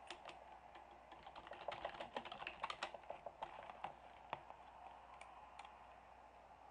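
Faint typing on a computer keyboard: a quick run of keystrokes about two to four seconds in, then a few scattered clicks.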